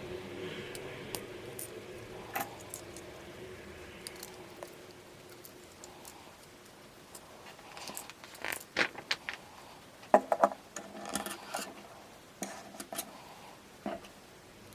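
Plastic Lego pieces clicking and rattling as they are handled and snapped together, in scattered sharp clicks with a busier cluster of rattles about two-thirds of the way through.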